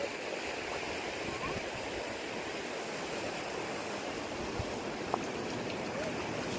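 Steady rush of sea surf on a rocky shore, with a few small splashes and taps as hands move through a shallow rock pool.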